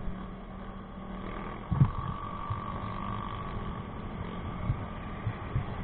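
Motorcycle engine running steadily while riding, heard from a camera on the bike with wind rumble on the microphone. A short low thump about two seconds in.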